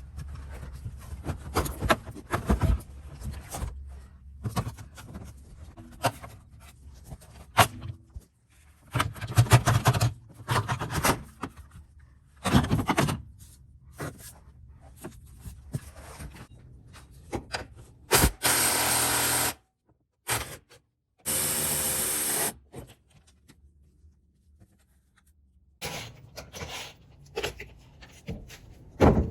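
Hand tools and metal parts being worked and handled: scattered clicks, knocks and scrapes. About two-thirds through come two loud, steady stretches of a power tool, each a second or so long.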